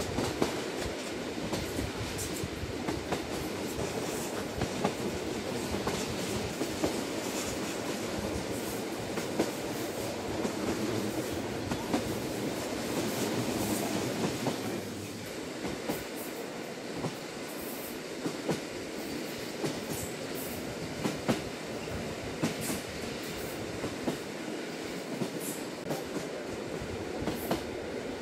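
Lilac limited express train heard from inside the carriage, running steadily along the line, with irregular clicks and clacks of the wheels over the rail joints. The running noise eases slightly about halfway through.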